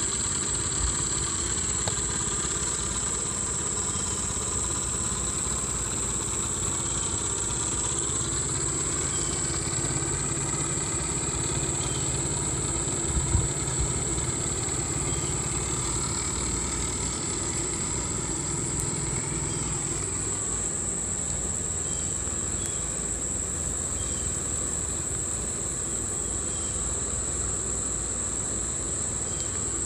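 A steady, distant engine-like drone with a pitched hum that rises about eight seconds in, over a constant high-pitched insect buzz.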